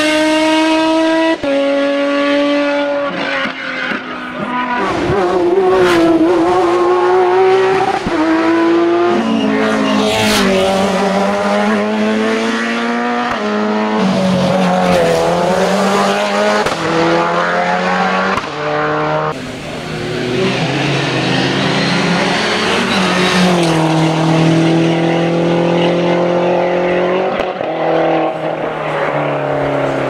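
Racing car engines at full throttle, one car after another, each revving high and dropping in pitch at every upshift as it accelerates up the hill-climb course. The first is an open sports-prototype racing car; saloon-type cars follow from about halfway on.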